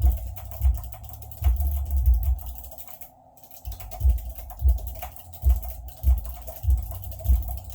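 Fast typing on a Chocofi low-profile split keyboard with Choc Robin switches: a quick run of key clacks with deep thuds, pausing for about a second roughly three seconds in, then carrying on.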